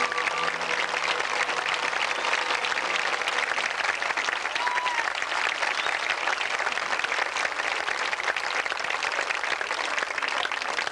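Crowd in the stands applauding, a steady patter of many hands, after the marching band's closing chord dies away at the start.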